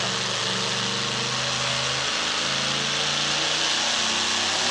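Two-wheel-drive pulling truck's engine running hard at high revs while it drags a weight-transfer sled, a loud steady drone over a hissing exhaust, with a brief dip about two seconds in.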